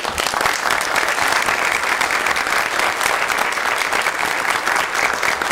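A roomful of people applauding, a dense, steady patter of many hands clapping.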